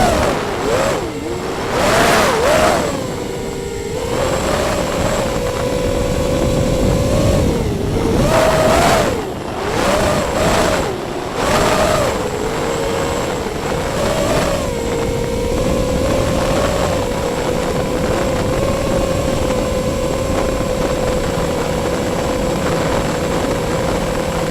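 Electric motor and propeller whine of an FPV aircraft in flight. The pitch dips and rises with throttle changes several times in the first fifteen seconds, mixed with loud bursts of rushing air, then holds at a steady pitch.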